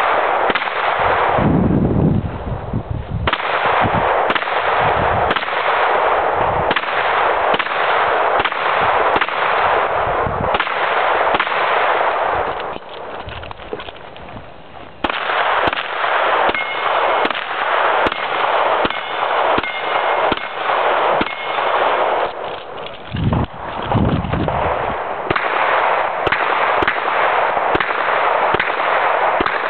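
Close, loud gunshots in quick strings from a competitor's pistol and rifle, with a lull of about two seconds roughly halfway through.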